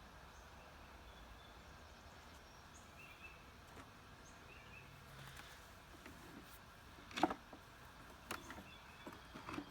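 Quiet outdoor background with a few faint bird chirps, broken by a few sharp clicks and knocks of the beehive's woodenware being handled, the sharpest about seven seconds in.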